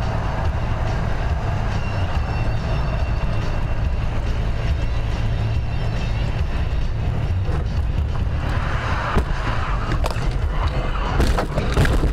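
Steady low rumble of road and engine noise inside a car at motorway speed. Near the end come several sharp knocks and bangs as the car collides with a red car.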